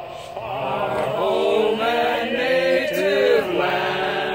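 A small group of adults singing together in long, held notes that waver and slide.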